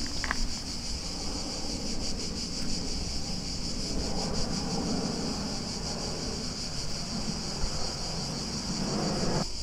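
Jet airliner passing overhead, a distant steady rumble that swells a little around the middle. Insects chirring in a steady high band throughout.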